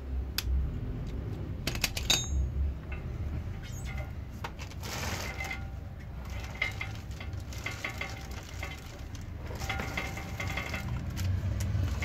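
Roller chain links clicking and rattling as a 525 O-ring motorcycle chain is handled. Pliers join the new chain to the old one, and the chain is then pulled through over the rear sprocket. A few sharp clicks come in the first two seconds, followed by stretches of light metallic rattle over a steady low hum.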